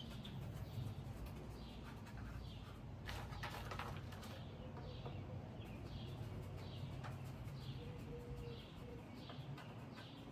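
A bird chirping over and over, short notes about twice a second, with a burst of metallic clattering and rustling about three seconds in as ceiling-fan blade hardware is handled.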